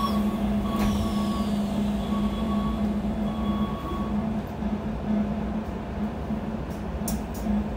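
Keikyu 1000-series electric train standing at a station with its equipment running: a steady low hum. Faint short beeping tones sound in the first few seconds, and a few light clicks come near the end.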